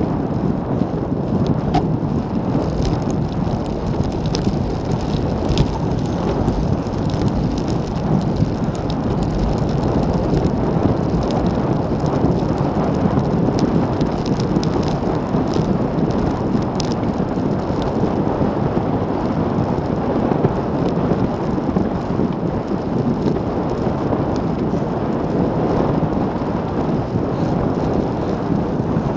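Wind rushing and buffeting over an action camera's microphone on a road bike moving at about 40–45 km/h, with tyre noise from the road. It is a steady, loud noise with scattered small ticks.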